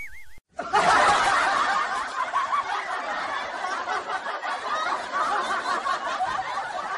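Canned laughter sound effect: dense, high-pitched laughter from many overlapping voices, starting about half a second in and carrying on without a break. Just before it, a short warbling cartoon tone cuts off.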